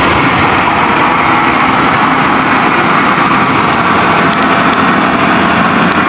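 Wheel loader fitted with a snow plough blade, its diesel engine running steadily as it pushes snow.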